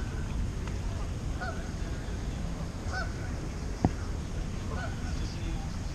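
Geese honking now and then, four short calls spaced a second or two apart, over a steady low rumble of wind. A single sharp tap about two-thirds of the way through.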